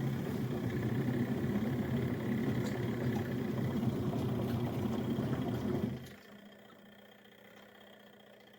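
Portable twin-tub washing machine's motor running with a steady hum, stopping about six seconds in.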